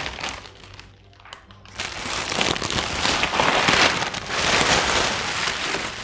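Plastic bags rustling and crinkling as a bag of frozen broccoli is pulled out of a plastic carrier bag. It dips briefly about a second in, then turns louder and continuous from about two seconds in.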